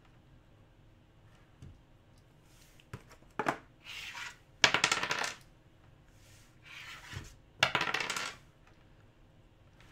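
A small plastic die tossed and clattering as it tumbles across a wooden tabletop, two main rolls about three seconds apart, with softer scraping of cardboard boxes slid across the table between them.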